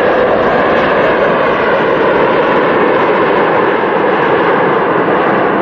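Jet engines of an Air Transat Airbus A330 as the airliner rolls down the runway. The noise is loud, steady and rushing, with no change in level.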